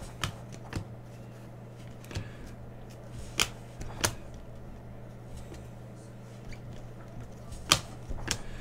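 Glossy Panini Prizm basketball cards being flipped through by hand, with about seven sharp, irregular snaps as cards are slid off the stack, over a steady low hum.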